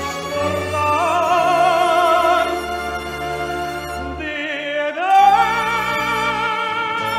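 Operatic tenor singing with orchestral accompaniment, holding long notes with a wide vibrato. About five seconds in, the voice slides up into a loud, high held note.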